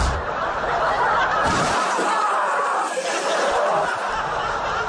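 People laughing and snickering.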